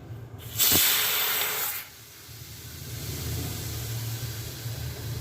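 Pigeon pressure cooker whistling: steam vents through the weight valve in a loud hiss that lasts about a second and cuts off. A quieter steady hiss with a low hum follows.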